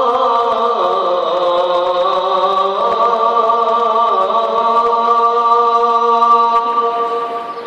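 A muezzin calling the adhan: one long, drawn-out, ornamented phrase sung on a single voice, the held pitch wavering and stepping down, then fading out near the end.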